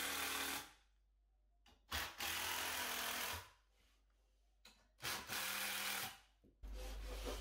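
Cordless drill driving screws through a timber batten into the wall to tighten it down. It makes three steady runs of about a second and a half each, with short pauses between.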